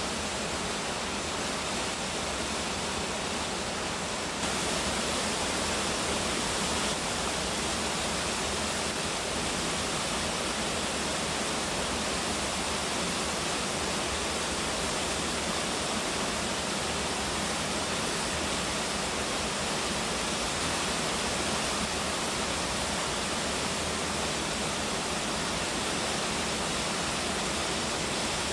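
Waterfall: a steady rush of falling water, stepping up a little louder and brighter about four seconds in.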